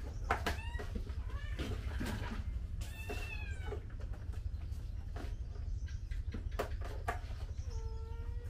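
Cats and kittens meowing while being fed: a short meow about half a second in, a falling meow about three seconds in, and a longer, steadier meow near the end, with scattered light clicks in between.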